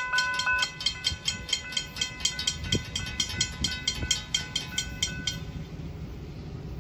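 Railroad grade-crossing warning bell ringing rapidly, about four strokes a second, over a low rumble. It stops suddenly about five seconds in, once the crossing gates are down.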